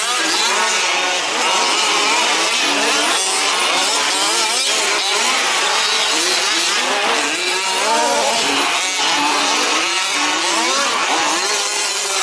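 Several 1/5-scale RC off-road trucks' small two-stroke petrol engines revving up and down as they race, several overlapping pitches rising and falling.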